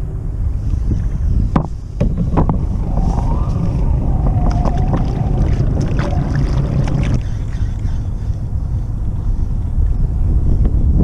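Wind rumbling on the microphone from a sit-on kayak at sea. A kayak paddle knocks and splashes for about five seconds in the middle.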